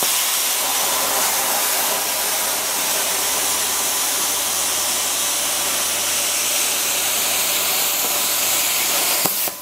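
Handheld plasma cutter cutting through thin sheet steel: a steady, loud hiss that stops abruptly near the end.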